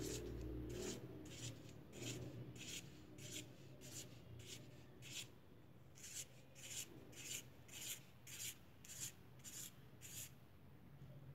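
Felt-tip marker scratching on paper in a quick run of short, faint strokes, nearly two a second, as small oval spots are drawn one after another. There is a short pause about halfway through.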